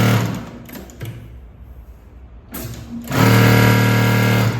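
Mauser Spezial 2645 computerized industrial sewing machine stitching thin fabric in short test runs. One run stops just after the start, and a second run of about a second and a half begins about three seconds in, with a steady motor hum.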